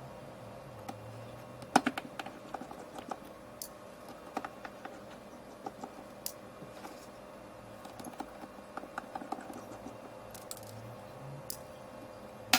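Irregular light clicking and tapping over a steady hum, with bunches of clicks about two seconds in and again near the end.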